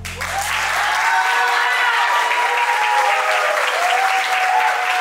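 Audience applause and cheering, with clapping and voices whooping, as the bachata song fades out in the first second.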